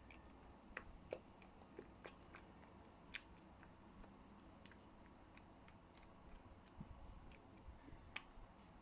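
Near silence: faint scattered clicks and a soft high chirp repeating about every two seconds.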